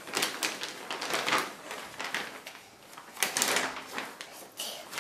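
Plastic shopping bag rustling and crinkling in a string of short crackles as hands rummage inside it and pull out a boxed toy, with a louder rustle about three seconds in.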